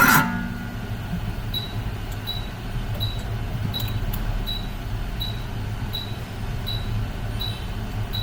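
A sharp metallic clink with brief ringing, then the steady whir of a hot air rework station blowing on the circuit board while a shorted capacitor is desoldered. A short high beep repeats about every three-quarters of a second.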